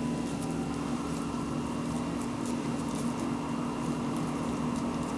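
A steady low mechanical hum, like a fan or appliance motor running, with a few faint clicks over it.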